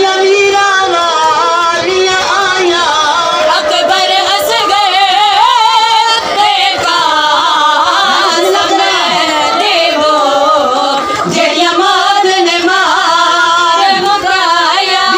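A woman singing a mournful majlis lament, unaccompanied by any clear beat, her voice wavering and ornamenting each held note.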